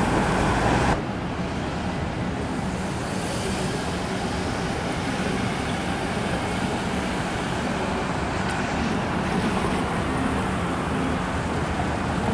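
Night street traffic for about a second, then a sudden change to the steady din of a casino floor with slot machines.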